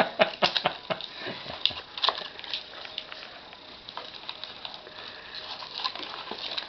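Duct tape being peeled and torn off a small wrapped box: irregular ripping and crackling, busiest in the first two or three seconds and lighter after.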